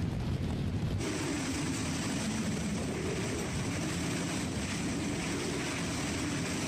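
Hurricane-force wind and driving rain make a steady rushing noise. The sound changes abruptly about a second in.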